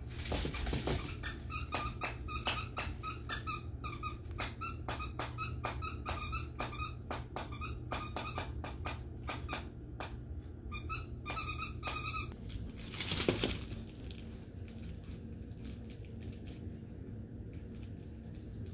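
A plush dog toy's squeaker squeaking over and over as a puppy bites it, about three short squeaks a second for the first twelve seconds. About thirteen seconds in there is one short, loud burst of noise, and the squeaking stops.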